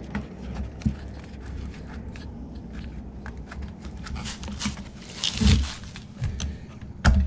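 Hands fitting a plastic air-cleaner housing and carburetor onto a Honda GCV190 engine and hand-starting its bolts: rubbing and small clicks, a short rushing noise a little past the middle, and a couple of dull thumps near the end.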